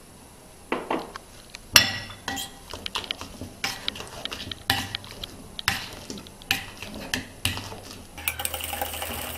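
Metal potato masher working through potato, egg yolk and milk in a glass bowl: irregular knocks and clinks of metal on glass with soft squishing, one sharp knock about two seconds in and a denser clatter near the end.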